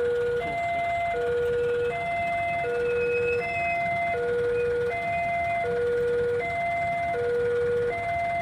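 Railway level-crossing warning alarm sounding a steady electronic two-tone signal, a lower and a higher tone alternating about every three-quarters of a second: the crossing is closed for an approaching train.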